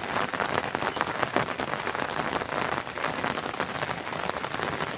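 Steady heavy rain, with many separate drops striking close by.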